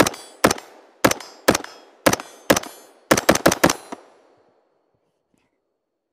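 Semi-automatic fire from an AR-15 carbine in 5.56/.223 with a muzzle compensator. About six shots come at a steady pace of roughly two a second, then a fast string of five. Each shot trails off in a short echo.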